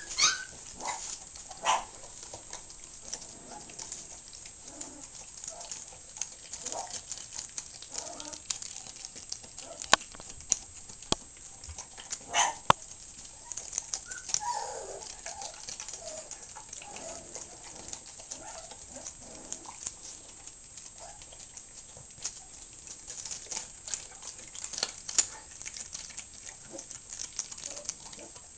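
Dog chewing and mouthing a raw chicken breast: irregular eating sounds with scattered sharp clicks, a few of them louder.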